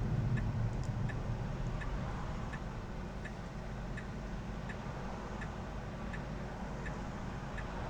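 Tesla Model 3's turn-signal indicator ticking steadily, about three ticks every two seconds, over a low steady cabin hum.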